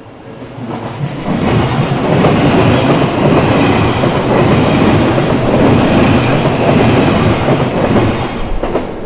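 Odakyu Odawara Line electric train passing close by, its wheels clattering over the rail joints. It builds up over about the first second, stays loud, and dies away near the end.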